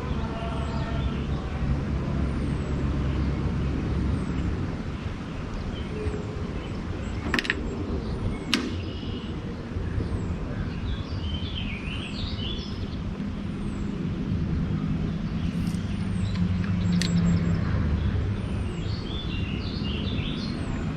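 A boat motor running steadily with a low hum, while birds chirp now and then. Two sharp clicks come about seven and eight and a half seconds in.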